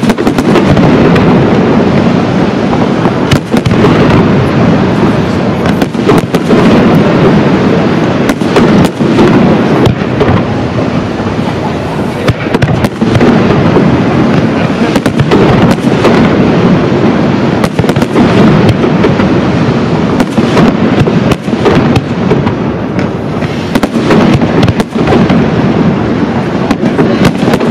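Pirotecnia Caballer FX aerial firework shells bursting in a dense, continuous barrage: loud bangs in quick succession over a steady rumble, with no let-up.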